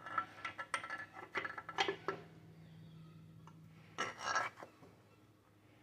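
Light metallic clinks and taps as a connecting rod bearing cap and its bolts are handled and seated on the crankshaft, most of them in the first two seconds, with a brief louder sound about four seconds in.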